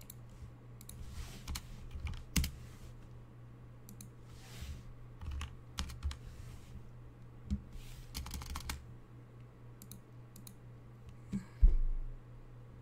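Scattered computer keyboard keystrokes and clicks over a low steady hum, with one louder thump near the end.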